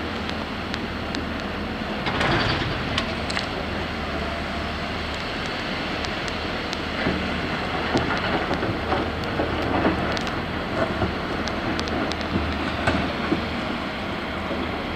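Earthmoving machinery at work: the steady diesel running of an excavator loading an articulated dump truck, with scattered clanks and knocks of rock and steel and a louder rush of noise about two seconds in.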